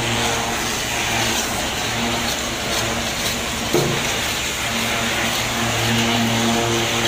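An engine runs with a steady low hum under a rough, even scraping noise from long-handled scrapers chipping barnacles off a ship's propeller. There is one sharp knock a little under four seconds in.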